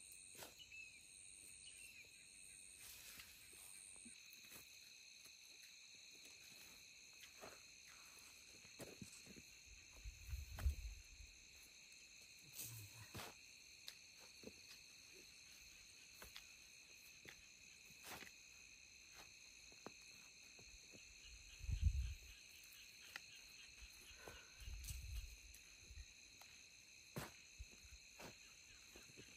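Steady high insect trilling on several pitches at once, with scattered clicks and a few dull thumps of hoes digging into soft soil, the loudest thump about three quarters of the way through.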